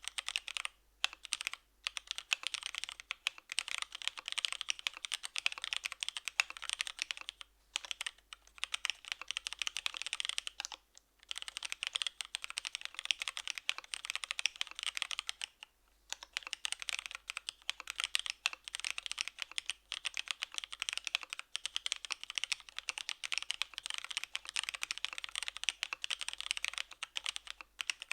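Fast, continuous typing on a Devotion 65% custom mechanical keyboard with linear Cherry Hyperglide Black switches, DCS-profile keycaps and an aluminium plate, tadpole-mounted with case foam. It is a dense run of keystroke clicks with a few brief pauses.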